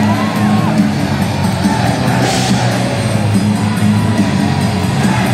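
Rock music played over the hockey arena's PA for a goal celebration, with the crowd cheering and yelling over it. About two seconds in comes a burst of hiss from the rinkside smoke cannons firing.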